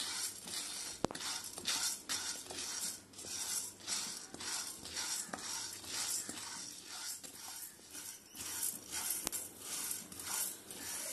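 Dry urad dal being stirred with a wooden spatula in an empty frying pan, the grains scraping and sliding across the pan in a steady rhythm of about two strokes a second, with an occasional sharp click of the spatula against the pan. The lentils are being dry-roasted without oil.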